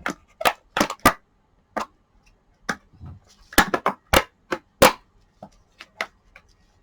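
Sharp clicks and knocks of rice-cooker parts being handled and pried at as a stubborn part is worked loose. There are a dozen or so irregular strikes, with the loudest cluster a little past halfway.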